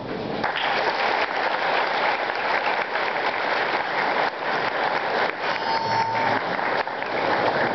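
Audience applauding, setting in about half a second in and continuing steadily.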